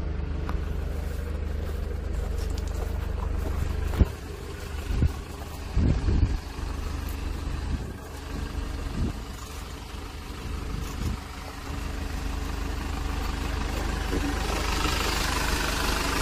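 Hyundai Libero wrecker's diesel engine idling steadily, with a sharp click about four seconds in and a few loud thumps just after it.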